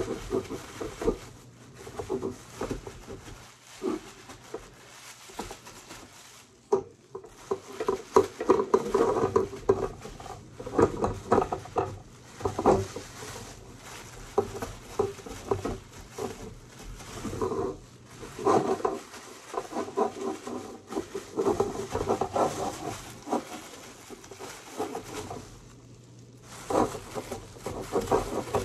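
A thin plastic bag rustling and crinkling as hands rummage in it, in uneven spells with short pauses.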